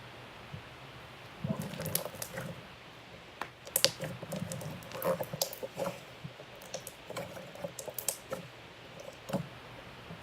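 Slime being squeezed and worked by hand, giving irregular small clicks and pops that begin about a second and a half in.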